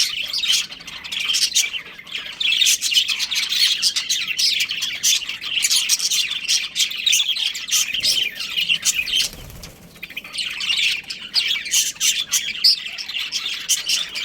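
A group of budgerigars chirping and chattering, many short high calls overlapping, with a brief lull a little past halfway.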